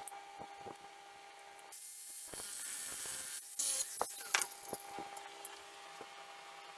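Steel bar being worked on a wooden bench: light clicks and knocks of metal, with a hissing, grinding stretch of about two seconds in the middle as an angle grinder cuts the bar, followed by a few sharper knocks as the cut pieces are set down.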